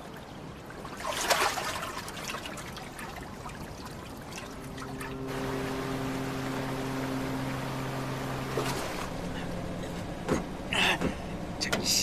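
Water sloshing and trickling, then a cargo ship's horn sounding one long low blast of about four seconds. A few sharp knocks follow near the end.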